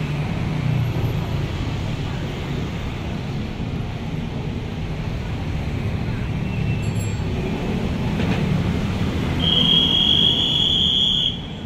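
Busy city street traffic: a steady low rumble of passing cars, scooters and buses. Near the end a high steady squeal rings out for about two seconds.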